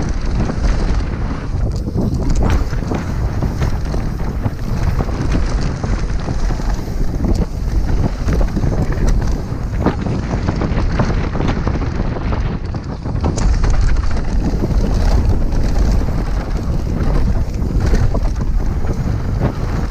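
Wind buffeting a helmet-mounted GoPro's microphone during a fast downhill mountain-bike descent, over the steady roar of tyres on a dirt trail. Frequent short knocks and clatters come from the bike over bumps.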